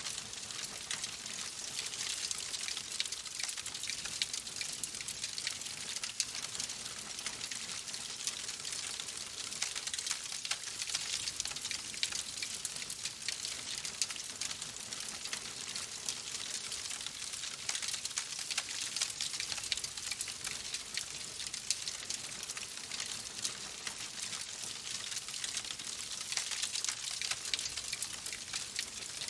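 Oak logs burning in a fireplace: a steady hiss of flames thick with constant small crackles and pops.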